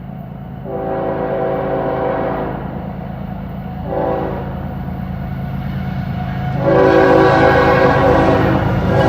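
CSX diesel freight locomotive's air horn sounding a long blast, a short one about four seconds in, and another, louder long blast from near the end, over the steady low rumble of the diesel engines. The long, short, long pattern is that of a grade-crossing warning.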